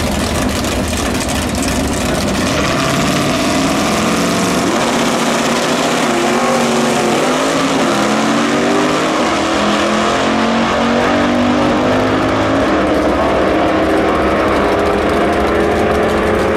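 Two 1960s Super Stock drag cars' V8 engines at full throttle on a side-by-side run, the engine notes climbing again and again as they shift up through the gears. The sound grows duller in the second half as the cars pull away.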